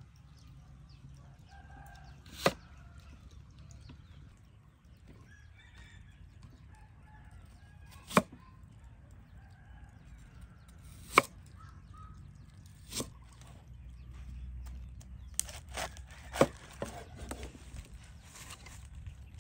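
Cleaver chopping down onto a wooden chopping block: single sharp chops a few seconds apart, then a quicker run of several chops near the end. Chickens cluck and crow faintly in the background.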